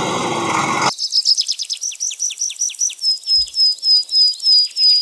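Vehicle engine noise cuts off abruptly about a second in. A bird then calls a fast run of repeated high chirps, about three a second, the later ones turning to short even whistles, with crickets trilling behind.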